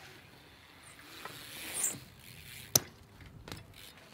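BMX bike rolling on skatepark concrete: a rising rolling hiss, then one sharp clack about three seconds in, followed by a few lighter ticks.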